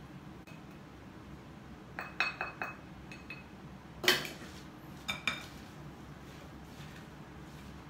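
Kitchen utensils clinking against a glass mixing bowl: a few light ringing taps about two seconds in, a louder clink about four seconds in, and two more just after five seconds.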